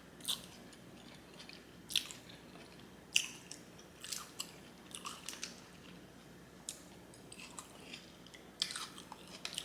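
Close-miked chewing of a mouthful of japchae glass noodles with vegetables and beef: irregular wet mouth clicks and smacks, roughly one every second or so.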